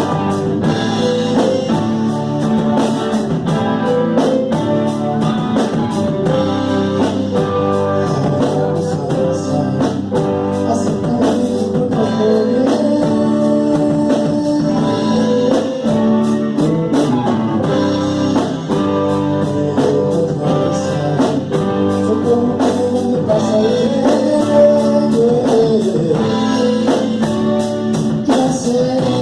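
Live band music: guitar-led blues-rock over a drum kit's steady beat, with notes bending in pitch later on.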